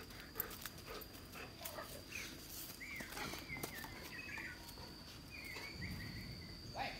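Yard ambience: a steady high-pitched insect drone, with short high chirping calls coming and going in the middle, and light clicks and rustles from a Rottweiler walking on grass in a chain collar.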